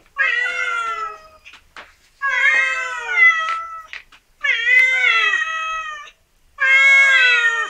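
Orange tabby cat meowing loudly four times in a row, long drawn-out meows with short pauses between them, begging to be fed.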